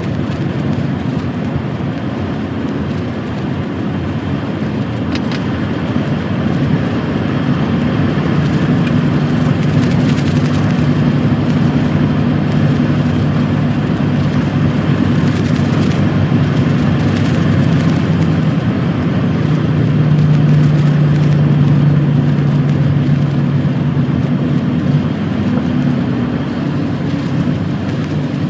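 Lorry's diesel engine running under way, with steady road and tyre rumble; the engine tone grows louder for a few seconds about twenty seconds in.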